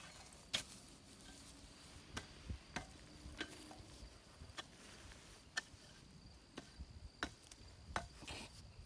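Irregular sharp clicks and snaps, roughly one every second, from hand work in a garden bed, over a faint steady high-pitched tone.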